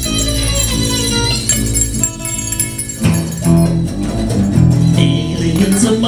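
Live band playing an instrumental passage on hollow-body electric guitar and electric bass. A falling, gliding tone dies away in the first second and a half. The band comes in fuller and louder about three seconds in.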